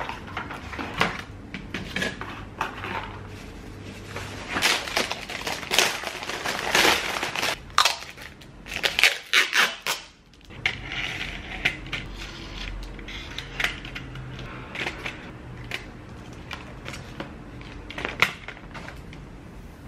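Plastic wrapping and cardboard packaging crinkling and rustling as a knife set is unpacked, busiest in the first half. After a brief lull, lighter handling follows with scattered clicks and knocks of knives and scissors being set into an acrylic knife block, one sharp click near the end.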